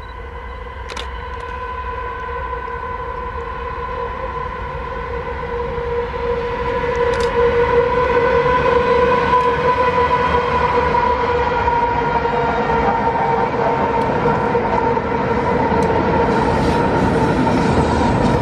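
Five GE diesel-electric freight locomotives working hard up a steep grade with a long, heavily loaded train, approaching and passing. Their engines grow louder over the first several seconds and then hold steady, with a steady high-pitched whine over the engine noise.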